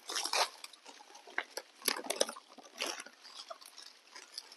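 Snack packets crinkling and rustling as they are handled and torn open, in short irregular crackles, the loudest at the very start, about two seconds in and about three seconds in.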